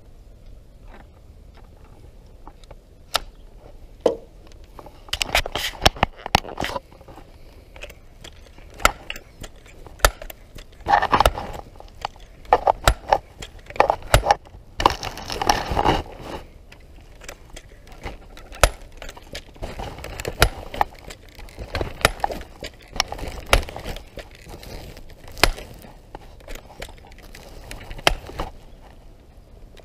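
Irregular clicks, knocks and rustling from a .177 pellet rifle being handled and loaded, busiest in the middle, with a longer rustling stretch a little past halfway.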